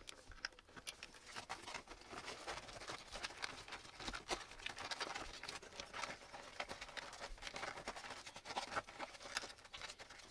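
Motorcycle wiring being handled by hand: cables rustling and scraping, with plastic connectors and cable holders clicking as the wires are pressed into place. The clicks come in a quick, irregular patter.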